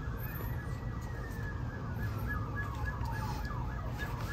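A siren wailing, its pitch slowly rising and falling, with a run of quicker falling whoops in the middle, over a steady low hum.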